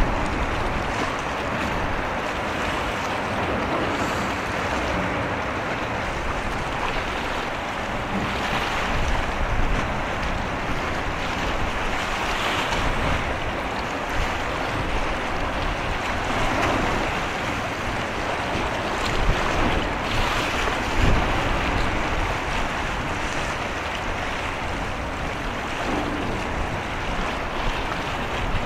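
Wind buffeting the microphone over the wash of sea water: a steady rushing noise, with a couple of louder gusts about two-thirds of the way in.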